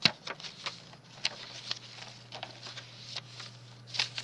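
Paper and thin card being handled: soft rustles with scattered sharp taps and clicks, the loudest at the very start and near the end.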